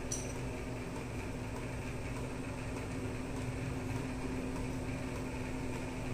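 A steady low hum with a faint even hiss: room background noise, with no distinct knocks or clinks.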